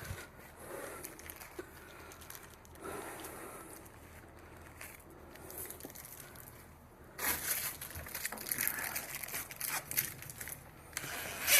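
Crinkling and scraping handling noises, faint at first and louder from about seven seconds in, with scattered sharp clicks.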